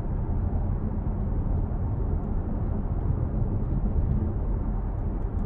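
Road and engine noise inside a moving car: a steady low rumble that cuts off suddenly near the end.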